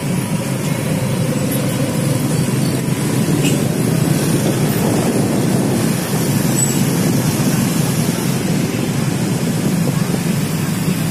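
Dense road traffic of motorcycles and cars running steadily, a constant low rumble of engines and tyres heard from within the moving traffic.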